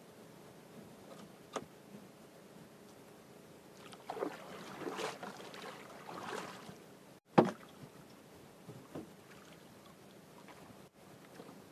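Small outrigger canoe on calm water while a fishing handline is hauled in by hand: low water and handling noise, with a louder stretch of water and handling noise in the middle. One sharp knock about seven seconds in is the loudest sound.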